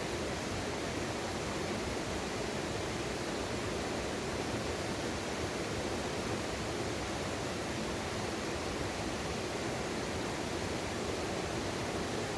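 Mountain valley stream rushing steadily, an even wash of water noise.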